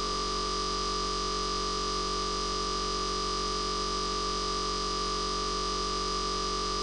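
Steady, unchanging electronic drone: several held tones over a constant hiss.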